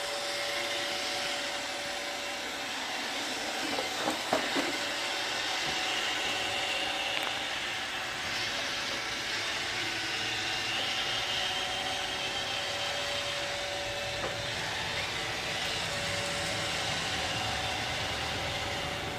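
iRobot Roomba 655 robot vacuum running, a steady whir from its motor and brushes, with a few sharp knocks about four seconds in.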